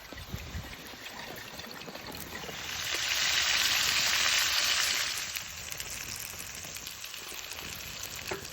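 Food sizzling in a hot pan: a loud frying hiss swells up about two and a half seconds in, holds for about two seconds, then dies back down.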